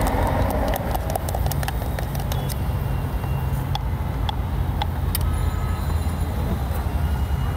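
Steady rumble of road traffic. In the first couple of seconds there is a run of light clicks and rattles as chickpeas are scooped and shaken in a plastic mug.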